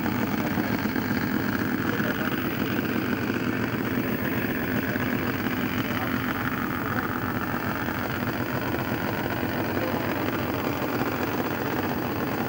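Drag-racing motorcycle engines running at idle, a steady, even drone with no revving.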